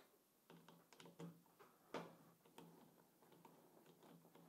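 Faint, irregular small clicks and ticks of a T-handle screwdriver turning the terminal screws out of a 12 V battery.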